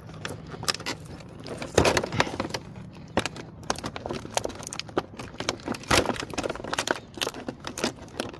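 Stiff plastic packaging tray crackling and clicking as toy swords are pried out of it, an irregular run of sharp clicks with a few louder crackles about two and six seconds in.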